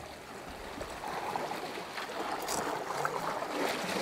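Sea swell washing and sloshing over jagged volcanic rocks, a steady rush of surf that grows louder about a second in.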